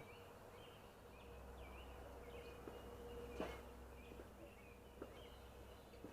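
Faint background of small birds chirping repeatedly, with one light knock about three and a half seconds in.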